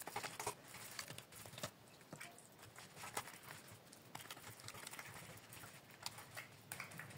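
Faint, irregular soft pats and taps of a hand pressing and flattening semolina harcha dough in a semolina-dusted pan.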